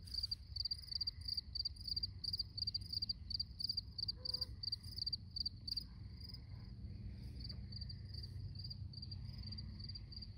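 Crickets chirping in a steady rhythm, about three or four high chirps a second, growing fainter after the middle, over a low steady rumble.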